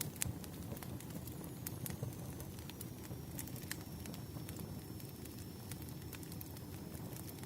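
Wood fire crackling: scattered sharp pops and snaps over a steady low rumble of burning logs.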